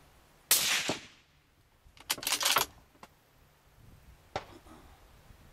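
A single shot from a suppressed bolt-action rifle about half a second in, dying away over about half a second, followed a second and a half later by a quick run of sharp metallic clacks and a lone click near the end.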